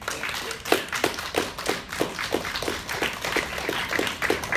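Audience applauding, with a few louder individual claps standing out at an even pace of about three a second.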